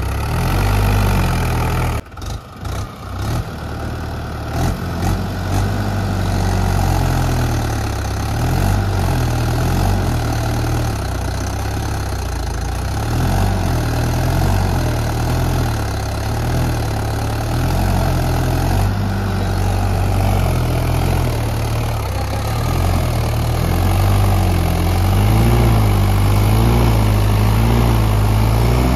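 Swaraj 843 tractor's diesel engine running hard while stuck in deep mud, its pitch rising and falling with the throttle. The sound dips sharply and stutters for a moment about two seconds in.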